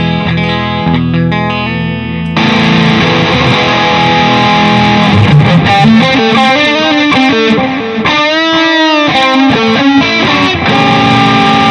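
Electric guitar played through a Nux MG-400 multi-effects processor. It starts with clean strummed chords, then about two seconds in switches by footswitch to a distorted lead tone with delay added. Lead lines follow, with wavering note bends about eight seconds in.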